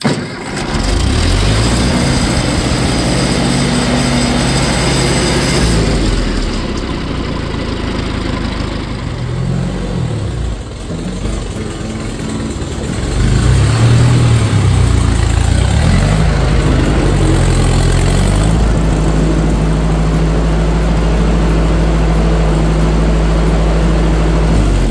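1954 Ford Jubilee tractor's four-cylinder gasoline engine running on its first start after an electronic ignition conversion. Its speed is high at first, sags and wavers in the middle, picks up again and then holds steady.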